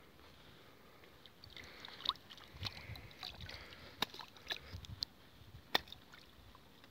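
Small splashes and plops on a pond's surface as pieces of bread are tossed in, with water sloshing. Several sharp plops come between about two and six seconds in.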